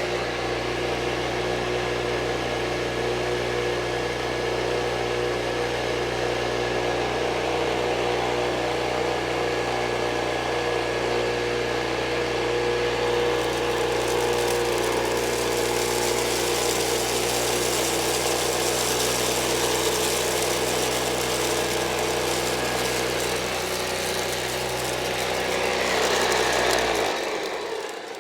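Hoover Junior vacuum cleaner's 300-watt motor running steadily, drawing air through the hose and upholstery brush, with a hiss that grows louder about halfway through. Near the end it is switched off and winds down.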